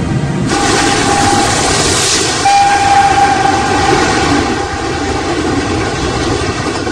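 Passenger train rushing past close by with a loud rolling roar, its horn sounding a short steady blast about half a second in and a longer one from about two and a half to five seconds in.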